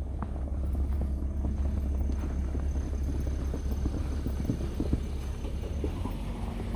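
Footsteps crunching in fresh snow, heard as scattered short crunches over a steady low rumble.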